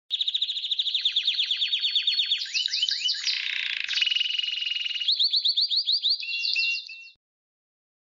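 Canary song: fast trills of repeated, downward-sweeping notes, switching to a new phrase every second or so, stopping suddenly about seven seconds in.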